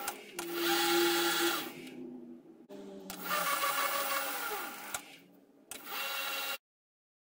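Myford Super 7 lathe running and turning a small bolt, with a steady machine whine and two stretches of hissing cutting noise from the tool on the metal. The sound drops out abruptly twice and cuts off shortly before the end.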